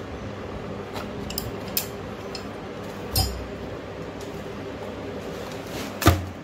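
Small metal cutting tool clicking and scraping against a fiberglass leg cast as it is cut and pried open, with a louder knock about three seconds in and the loudest knock near the end.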